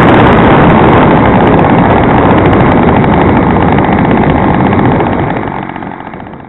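Loud, steady rushing noise of wind and motion on a small built-in camera microphone while travelling along a road. It fades out over the last second or so.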